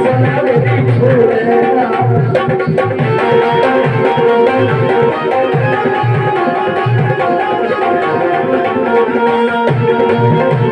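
Instrumental passage of a Hindi devotional bhajan: harmonium playing a melody of held reedy notes over a steady hand-drum rhythm with deep, regular strokes.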